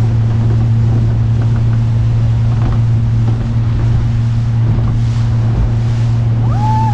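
Outboard motor driving a small speedboat at speed, a steady low drone, with wind noise on the microphone and water rushing past the hull.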